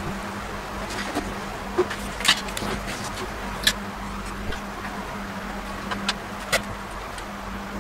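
Scattered sharp clicks and taps over a steady low hum.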